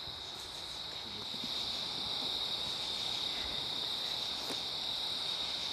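Crickets chirping steadily, a continuous high-pitched chorus over a soft, even hiss.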